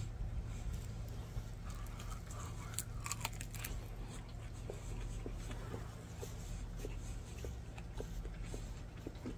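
Close-up biting and chewing of a crispy fried chicken wing, with a run of crunches about three seconds in, then softer chewing with small clicks. A low steady rumble runs underneath.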